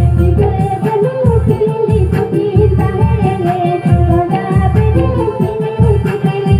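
Live Santali song: a voice singing into a microphone over a loud amplified band track with a steady, heavy drum beat.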